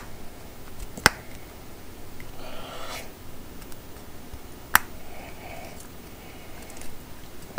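Sharp clicks a few seconds apart, with light rustling between, as an arbor adapter ring is worked into the centre hole of a Diablo circular saw blade by hand.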